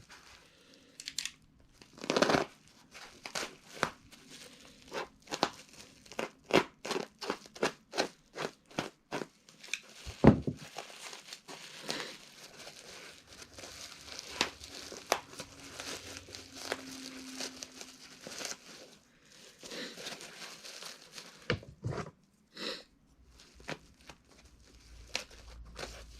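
Packaging being torn open and plastic bubble wrap crinkling as it is pulled apart by hand, a run of short crackles and rips with one louder knock about ten seconds in.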